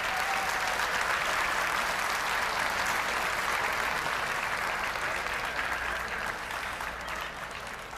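A large arena crowd applauding steadily, easing off slightly near the end.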